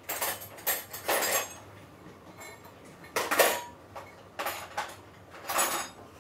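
Cutlery and dishes clinking and clattering in several short bouts, the loudest a little over three seconds in, as a spoon and bowls are handled.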